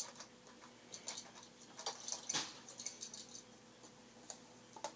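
Hard plastic Kamen Rider toy belts being handled and set down on a tabletop: a run of light clicks and clatter, busiest and loudest about two seconds in.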